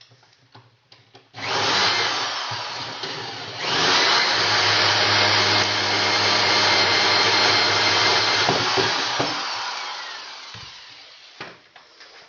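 Milwaukee right-angle drill boring a hole of about 1 3/8 inch through wood. It starts about a second and a half in, gets louder and steadier about four seconds in as the bit bites, then tapers off and stops near the end.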